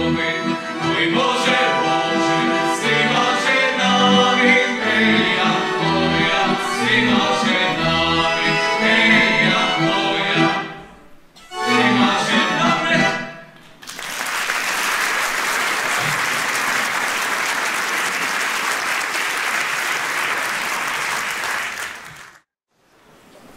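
Male voices singing a Lemko folk song in harmony with accordion accompaniment, closing on a held final chord about halfway through. Audience applause follows for about eight seconds and cuts off abruptly near the end.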